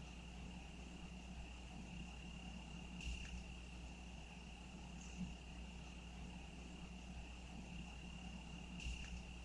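Insects trilling steadily on one high pitch, faint, over a low steady rumble, with two brief clicks, about three seconds in and near the end.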